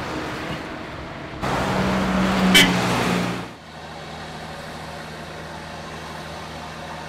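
Diesel engine of quarry machinery running, louder for about two seconds with one sharp knock at its peak. About three and a half seconds in it drops abruptly to a steadier, quieter hum.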